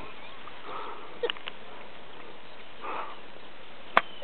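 A golf club strikes the ball once near the end: a single sharp crack, the loudest sound here. Before it there is a low steady background with a few faint clicks and short breathy sounds.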